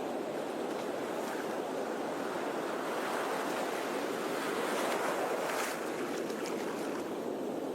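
Sea surf washing continuously on a shore, swelling to a peak about five seconds in with a brief hiss, then easing back.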